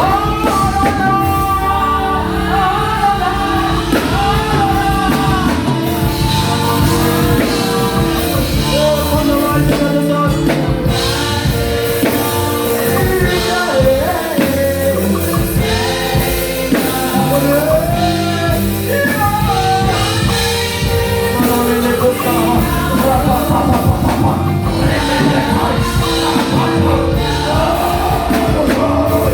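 Worship music with a band and singing voices, playing steadily.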